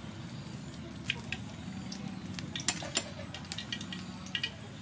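Soybean oil heating in a wok over a charcoal stove, giving scattered light crackles and pops over a low steady background.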